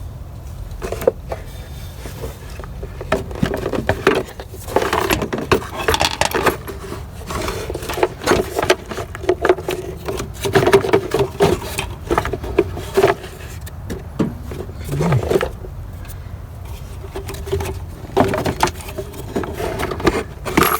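Metal parts clinking, knocking and scraping irregularly as a replacement starter motor is worked by hand into its mounting position on the engine.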